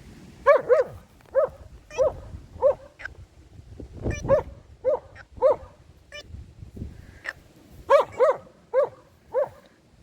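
A dog barking repeatedly: about a dozen short, fairly high-pitched barks, several coming in quick pairs.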